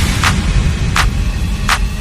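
Electronic background music with a heavy bass rumble and a sharp percussive hit about every three-quarters of a second.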